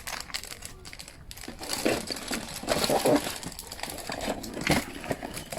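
Plastic toy packaging crinkling as it is handled and unwrapped, in irregular bursts that are loudest from about two to three seconds in and again near five seconds.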